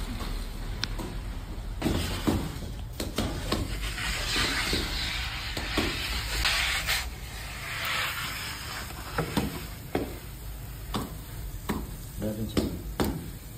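A metal tray of meatballs, tomatoes and peppers sizzling in a wood-fired oven, with a hissing stretch in the middle, and scattered knocks and clinks of the tray and the oven peel.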